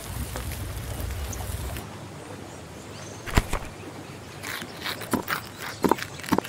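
Campfire crackling over a low rumble, which cuts off abruptly under two seconds in. It is followed by a knife on a bamboo cutting board slicing a cooked salmon fillet: one sharp knock about three and a half seconds in, then a run of short crisp cuts near the end.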